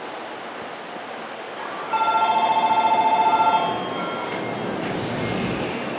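A station departure signal rings with a fast pulsing tone for about two seconds, over the steady hum of the standing electric train. A short hiss follows near the end.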